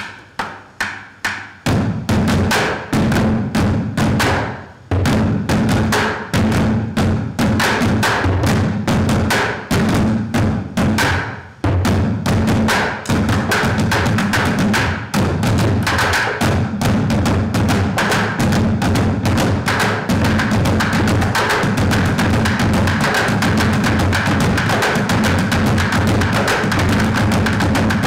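Drum ensemble playing sticks on upright barrel-shaped drums: a few separate strikes, then a steady, driving rhythm from about two seconds in, broken by two short pauses. In the last third the strokes grow faster and denser, like rolls.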